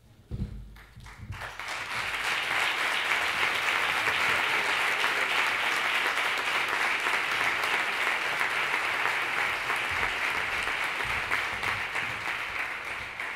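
Audience applauding: many people clapping together. The applause builds over the first couple of seconds, holds steady, and dies away near the end.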